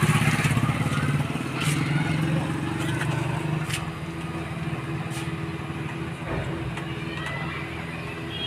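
A steady low motor hum that slowly fades, with a few sharp metallic clicks.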